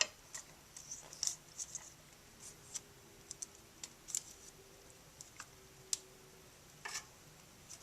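Faint, irregular clicks and scrapes of a sharpened stick prying at the hard plastic triple seals seated in the grooves of a gearbox shaft, with a sharper tick about six seconds in.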